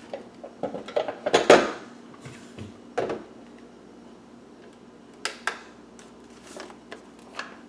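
A plastic mixing bowl and a kitchen scale being set down on a countertop: a few scattered knocks and clatters. The loudest cluster comes about a second and a half in, a sharp knock at about three seconds and two lighter ones about five and a half seconds in.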